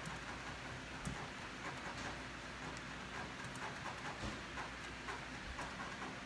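A dog panting, a run of quick, soft breaths.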